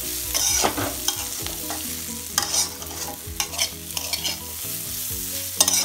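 Flat metal spatula scraping and stirring potato strips around a metal kadhai, over a steady sizzle of the potatoes frying in mustard oil. The scrapes come irregularly, about one a second, with the loudest near the end.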